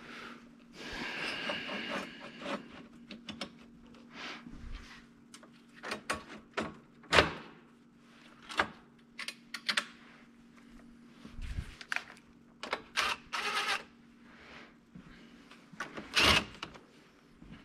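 Scattered knocks, clicks and clatter of metal parts being handled on a steel workbench as an aluminium rail and steel gear rack are positioned. The loudest knocks come about 7 seconds in and again near the end, with two short scrapes a little before.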